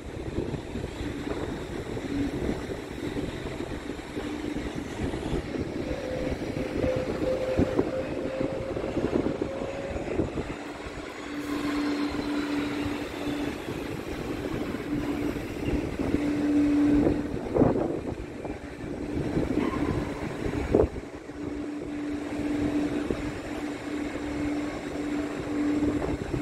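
Jet aircraft engine noise: a steady drone with a low hum that comes and goes, and a faint whine slowly rising in pitch partway through.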